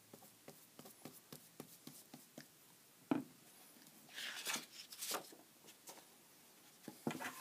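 Hand-work on bookcloth and a board tray: scattered light taps and clicks, one sharp knock about three seconds in, and a few short rubbing swishes a second later.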